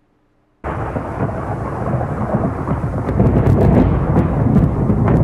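Thunderstorm: thunder rumbling with rain, starting abruptly about half a second in after a moment of silence and growing louder from about three seconds in, with scattered sharp crackles.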